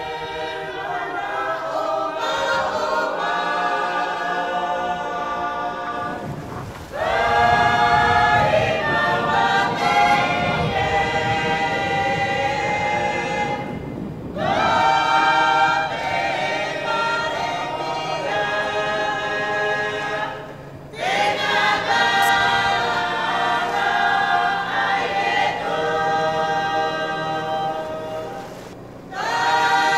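A choir singing in long, held chords, phrase after phrase, with short breaks between phrases about every seven seconds.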